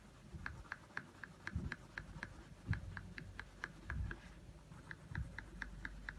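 Blue coloured pencil shading on paper in quick back-and-forth strokes: a faint run of short scratches, about four a second, with a few soft low thumps.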